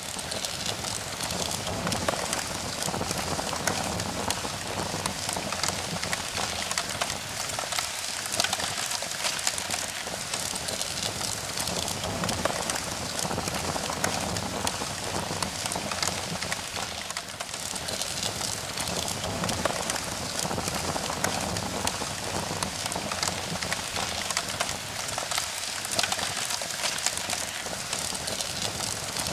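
Crackling fire sound effect: a steady rushing hiss with dense small crackles and pops.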